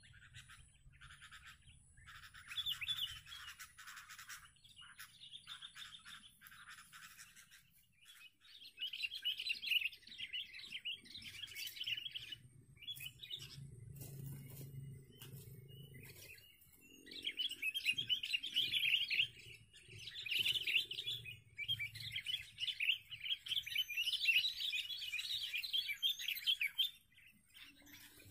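Sooty-headed bulbuls (kutilang) singing in bouts of rapid, chattering notes. The calling is loudest and nearly continuous in the second half.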